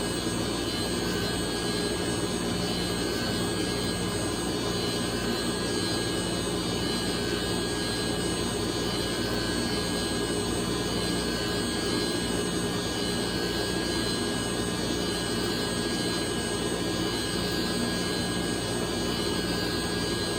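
Sawmill machinery running steadily: a continuous mechanical drone with a constant whine and hum, unchanging throughout.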